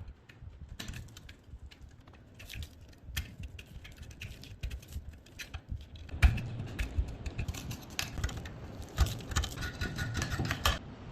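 Small metal parts clicking and clinking as they are handled, sparse at first, then busier and louder from about six seconds in, with a brief metallic ringing near the end.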